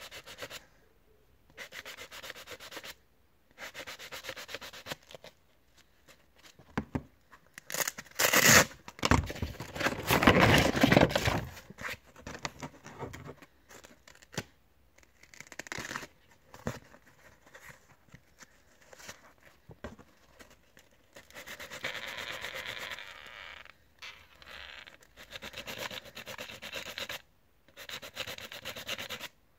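Sandpaper on a foam sanding block rubbing against the plastic housing of a Wahl Sterling 2 Plus hair trimmer. The hand-sanding comes in runs of quick strokes broken by short pauses, with a louder stretch about eight to twelve seconds in.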